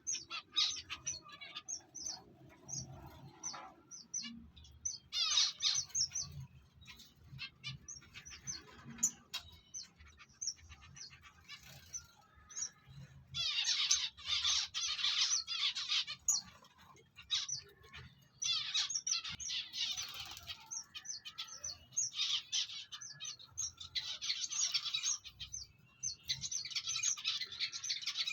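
Small cage birds chirping, with many short high-pitched calls and several denser song bursts lasting one to three seconds each.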